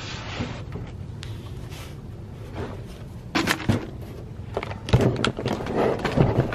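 Knocks and clunks from handling a heavy metal networking unit as it is turned over, starting about halfway in. Before that there is only a low steady background noise.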